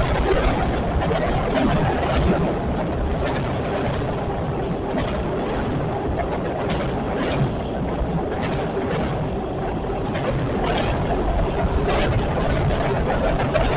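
Train rolling past with a steady rumble, its wheels clicking over rail joints roughly once a second at uneven intervals.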